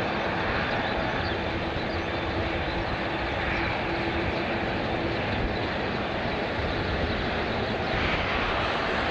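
Jet airliner engines running: a steady, even rushing noise at constant loudness, with a faint held tone in the first half.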